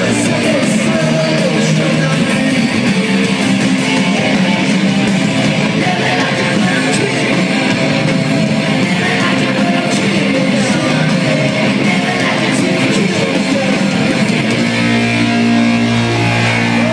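A rock band playing live with loud electric guitar. Near the end the band holds a steady low chord.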